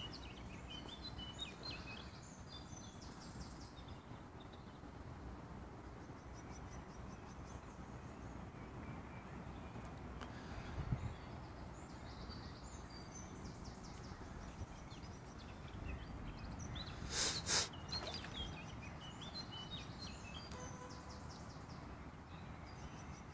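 Small birds chirping over a steady outdoor background hiss. About seventeen seconds in come two sharp sounds close together, and a soft low thump comes a few seconds before them.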